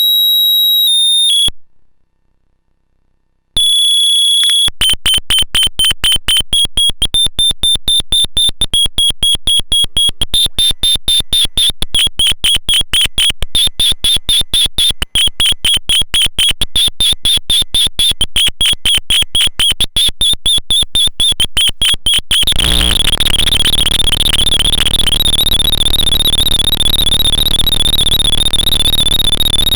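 Eurorack square-wave oscillator noise module (a Jupiter Storm-style 'cosmic noise' unit) making a piercing high electronic tone. The tone cuts off after about a second and a half, returns as a rapid pulsing chirp at about three pulses a second, then about 22 seconds in turns into a continuous harsh buzzing drone.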